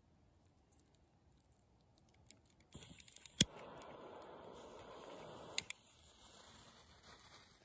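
Butane torch lighter held to burning black snake fireworks: a steady gas-flame hiss starts a little under three seconds in, with a sharp igniter click at about three and a half seconds. A couple of seconds later it is released with two clicks, and a fainter hiss fades out.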